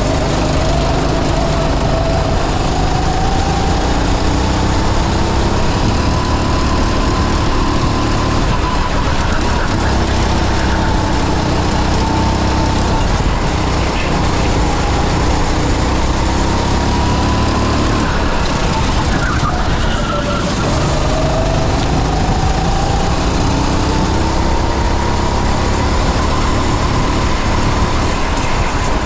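Go-kart engine running hard on track, recorded onboard: its whine climbs in pitch as the kart accelerates, holds, then drops as it slows. This happens several times, with the deepest drop about two-thirds of the way through, over a constant low rumble of engine and vibration.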